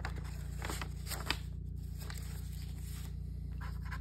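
Paper forms and a cardboard kit box being handled: scattered rustles and light taps, one sharper tap about a second in, over a steady low hum.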